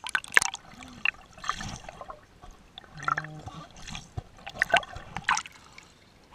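Pool water splashing and dripping in short, irregular bursts close to the microphone.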